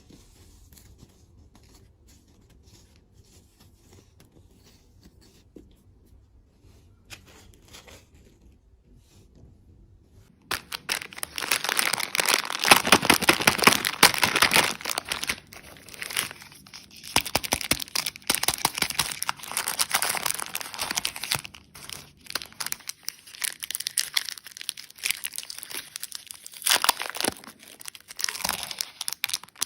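Candy packaging being handled, torn open and crinkled: only faint light handling at first, then from about ten seconds in loud, dense crinkling and tearing of the wrapper, with short pauses.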